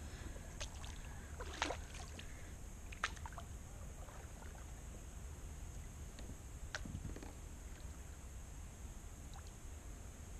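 Water sounds around a plastic sit-on-top kayak on a slow spring run: a few light taps and drips, the sharpest about one and a half and three seconds in, over a steady low rumble.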